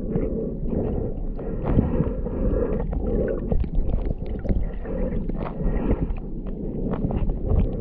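Underwater sound in shallow water, heard through a GoPro held beneath the surface: a muffled, churning wash of moving water with frequent small clicks and crackles.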